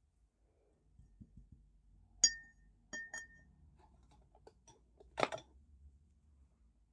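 Light clinks on a glass water jar, each with a short bright ring: one sharp clink about two seconds in, two more close together a second later, then a brief scuffing rustle.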